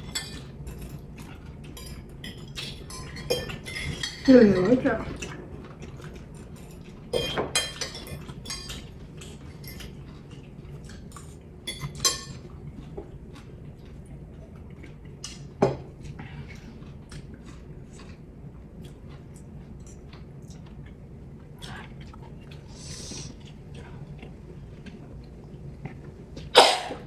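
Metal forks scraping and clinking on ceramic dinner plates during eating, with scattered light clicks and a few louder knocks. A short murmur from one of the diners about four seconds in.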